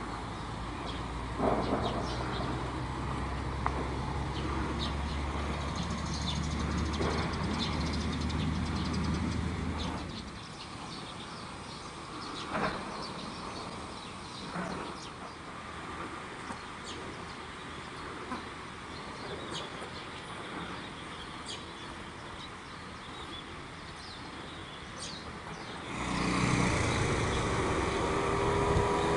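Outdoor street ambience: a motor vehicle engine running low and steady for about the first ten seconds, then birds chirping over quieter background, and a motor vehicle coming close and growing louder near the end.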